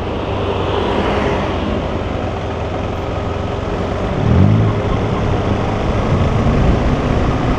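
KTM 390 Adventure's single-cylinder engine running under way, over a steady rushing noise. About four seconds in, the engine note rises briefly, then settles into a steady hum.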